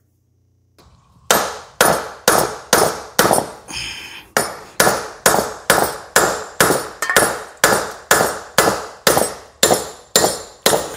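A big hammer striking the rock shaft of a John Deere 3038e rock shaft valve manifold, driving the shaft out with the Woodruff key still in place. Steady, evenly spaced blows, about two a second, start about a second in, each with a short metallic ring.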